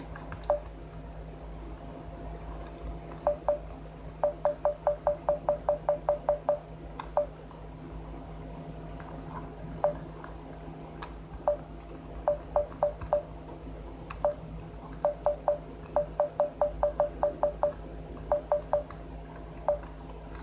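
Sony Handycam DCR-SR42 camcorder giving short electronic beeps as its controls are worked. The beeps come singly and in quick runs of up to about ten, around four a second, over a low steady hum.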